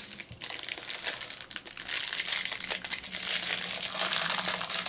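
Small clear plastic bag of toy accessories crinkling as it is handled and opened, the crinkling growing denser and louder about two seconds in.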